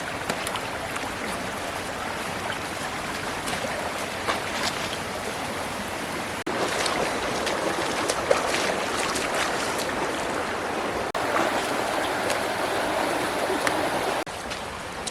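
Steady rush of running water with small splashes and clicks. The sound jumps abruptly in level a few times where the footage is cut.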